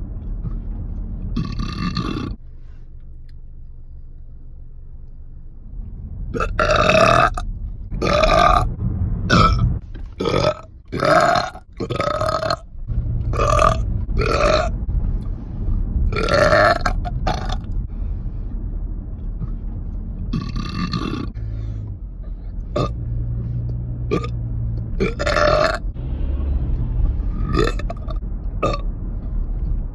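A person burping over and over, about fifteen separate burps in a loose irregular run. Some are short and others are drawn out to nearly a second.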